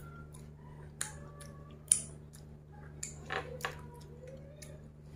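Mouth smacks and sucks as food-covered fingers are licked clean: a few short, sharp wet smacks spaced out, the sharpest about two seconds in.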